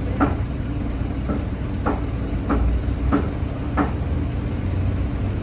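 A meat cleaver chopping meat into cubes on a wooden cutting board: six sharp chops, a little under two a second, stopping a while before the end. Under them runs a steady low machine hum.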